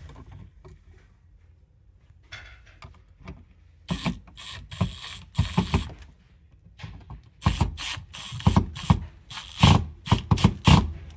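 Clicks, rattles and scraping of an electrical outlet and its screws being handled and pushed back into the wall box, in repeated clusters from about four seconds in.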